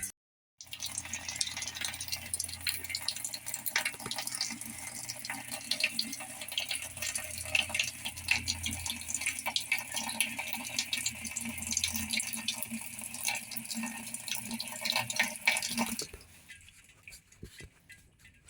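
Water running into a Whirlpool washing machine's tub, a steady splashing hiss over a low hum. It drops away sharply about two seconds before the end.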